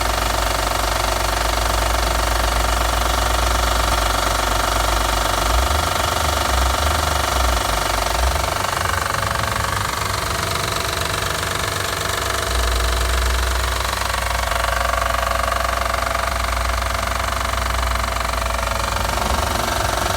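2009 Acura TL SH-AWD's V6 engine running with a knocking noise at cold start, which the owner takes for engine knock.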